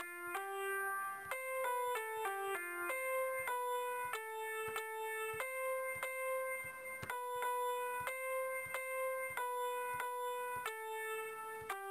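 Background music: a simple melody of single held notes on an electronic keyboard, moving from note to note every half second or so.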